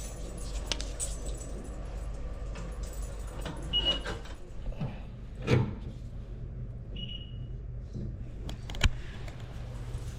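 Steady low hum of a gas furnace running in heating mode, with clicks and clatter of tools being handled and two short high beeps.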